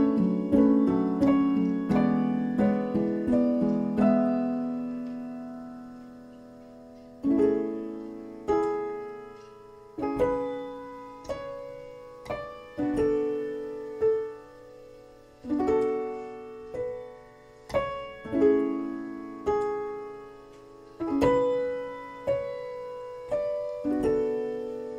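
Background music: a gentle piano-like keyboard playing single struck notes and chords that ring and fade away, thinning out briefly a few seconds in before the notes pick up again.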